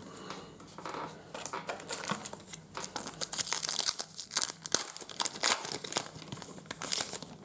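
Trading-card pack wrapper being torn open and crinkled: a dense run of irregular crackles and rustles.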